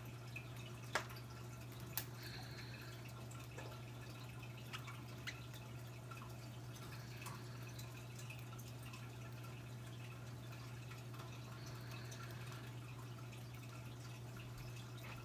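A steady low hum with scattered faint ticks, and two sharper clicks about one and two seconds in.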